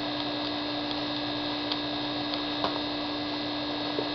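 Steady electrical mains hum, with a few faint clicks as the sander's screw-on sanding adapter is taken off by hand and set down.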